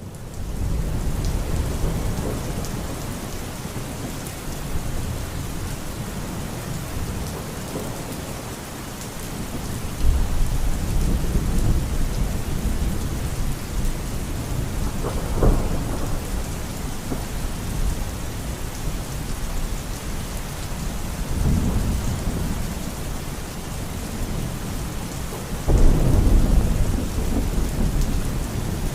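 Steady heavy rain with rolling thunder. The rumbles swell up several times, with a sharper crack about halfway through and a sudden loud rumble near the end.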